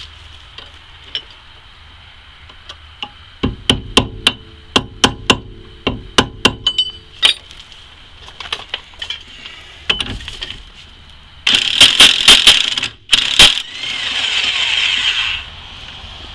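Hammer blows on the steel rear suspension knuckle, two or three a second for several seconds, each with a short ring. Later comes a louder run of rapid knocks and then a few seconds of steady whirring with a slight rise in pitch.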